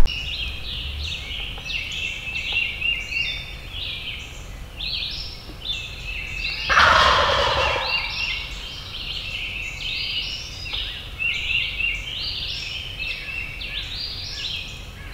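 A wild turkey gobbler gobbles once, loudly, about seven seconds in, over continual chirping of songbirds.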